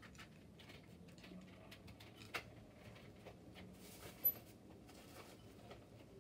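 Small plastic clicks and light rattling of Lego bricks being handled and searched through, irregular and quiet, with a stronger click about two seconds in and the loudest, sharp click a little past four seconds.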